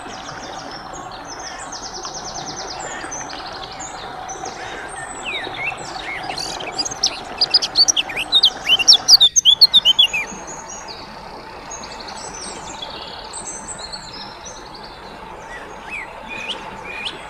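Small birds chirping and twittering, with a run of loud, rapid chirps from about seven to ten seconds in, over a faint steady hum.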